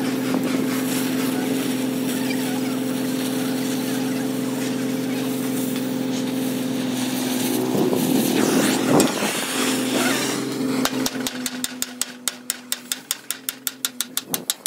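A steady, low-pitched machine hum, then a fast run of sharp taps, several a second, over the last few seconds as the hum fades.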